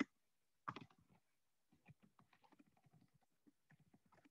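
Faint computer keyboard typing: an irregular run of soft key clicks, with a couple of louder clicks in the first second.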